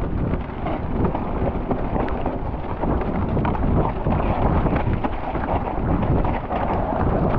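Mountain bike descending a wet, rough trail: a steady rumble of wind buffeting the camera microphone, with tyres hissing through mud and water, and a constant clatter of knocks and rattles as the bike goes over bumps.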